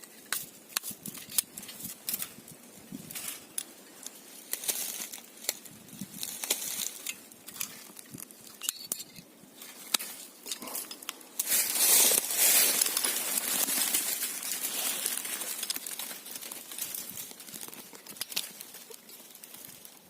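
Ratchet pruning shears clicking in short, uneven snaps as the handles are worked stroke by stroke through a branch. About halfway through, loud rustling of bush branches and leaves takes over, then gradually dies down.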